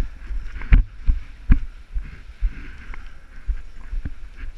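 Footsteps on a concrete floor while moving quickly: uneven dull thumps a few times a second, two of them sharper knocks.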